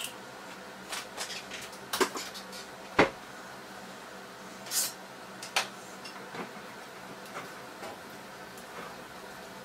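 Pots, pans and utensils being handled at a stove: scattered clinks and knocks, the sharpest about three seconds in, over a faint steady hiss.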